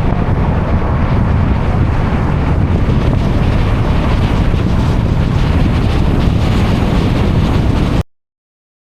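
Wind buffeting the camera microphone, a loud, steady rumble with no other sound standing out. It cuts off suddenly about eight seconds in.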